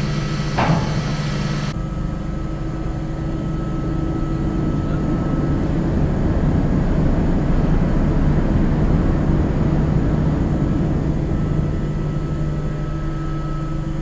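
Steady low drone of a ship's deck machinery, with a single sharp knock under a second in. About two seconds in, the sound shifts to a rougher, noisier low rumble that swells in the middle and eases off near the end.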